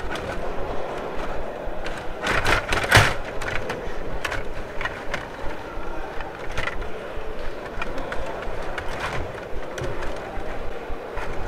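Rod hockey table in play: a continuous clatter of rods rattling and being spun in their slots, plastic players knocking the puck and the puck hitting the boards, with one loud knock about three seconds in.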